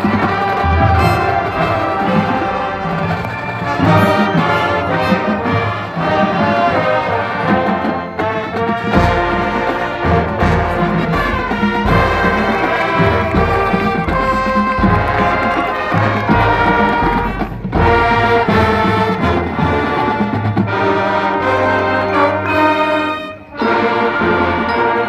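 High school marching band playing, led by its brass section with full sustained chords. The music breaks off briefly about 23 seconds in, then comes back.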